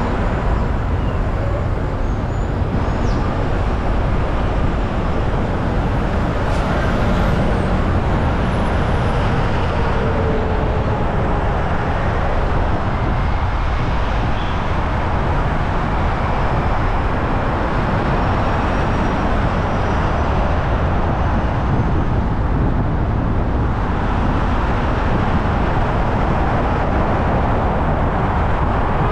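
A car driving at a steady speed: a continuous, even hum of tyre and engine noise.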